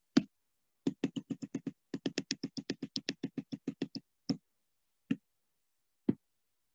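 Small sharp clicks: a quick, even run of about five a second lasting some three seconds, then three single clicks spaced about a second apart.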